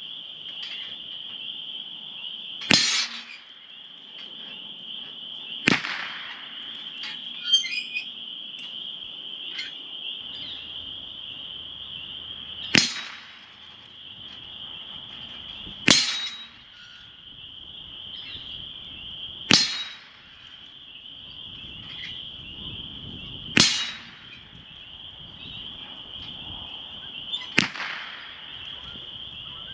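.22 LR rifle shots: seven single sharp cracks spaced about three to seven seconds apart, over a steady high-pitched insect drone.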